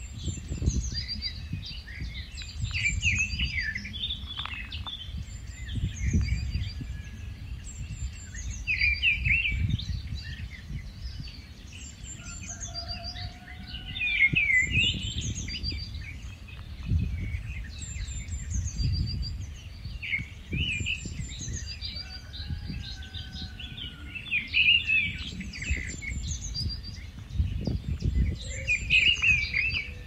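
Rufous-tailed scrub robin singing: short, varied phrases repeated every couple of seconds, each starting with high notes and dropping to lower scratchy ones. Underneath is a gusty low rumble of wind on the microphone.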